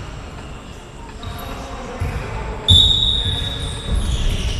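Ball thuds of kicks and bounces on a hall floor during a football match, with a referee's whistle, a short shrill blast, about two and a half seconds in.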